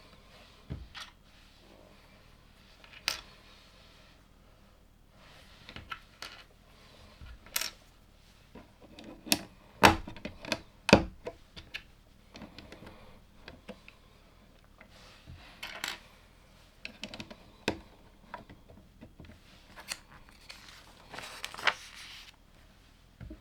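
Plastic LEGO pieces clicking and clattering as they are handled and pressed together, irregular single clicks with two sharper ones close together near the middle and a few brief rustles.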